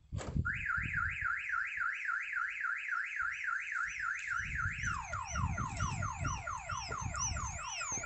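Prestige two-way van alarm siren set off by a door being opened with the system armed: a sharp knock, then a warbling tone rising and falling about three times a second. About five seconds in it switches to a faster, repeated falling sweep.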